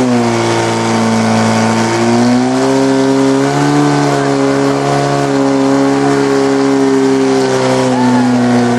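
Portable fire pump's engine running flat out at high revs, its pitch holding steady with small rises and dips while it drives water into the hose lines during a firefighting-sport fire attack.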